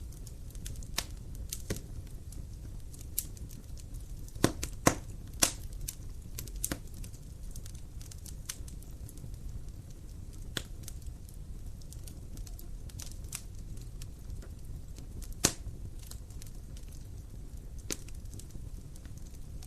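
Wood fire in a fireplace crackling, with irregular sharp pops over a low steady rumble of the flames; a few louder pops come about four to six seconds in and one around fifteen seconds in.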